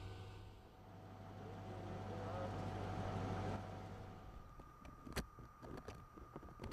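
A steady motor hum, such as a vehicle engine running, that fades out about four seconds in; after it come scattered sharp clicks and knocks over a faint steady tone.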